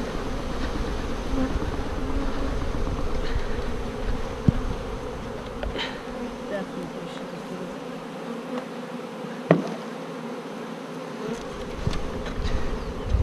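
Dense, steady buzzing of a mass of honeybees just shaken from a package into a hive, with a couple of sharp knocks.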